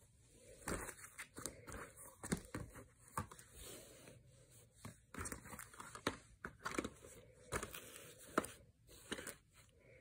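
Plastic DVD cases being picked up, moved and set down on a bed: a string of irregular soft clicks and clacks, with handling rustle and crinkling.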